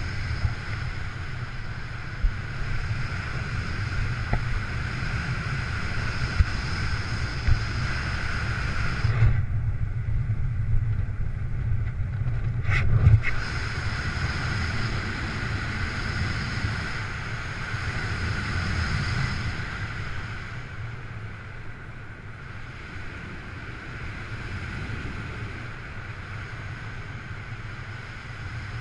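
Wind rushing across a skydiver's camera microphone during a parachute descent, steady and heaviest in the low end, with a few brief knocks. For a few seconds about nine seconds in, the hiss thins out.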